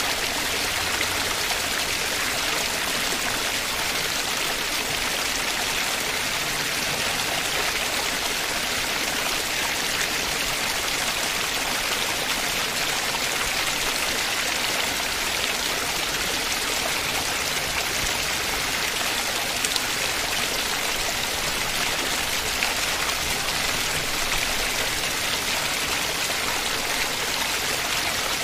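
Steady, even rush of running water swollen by monsoon rain, with no separate splashes or drops standing out.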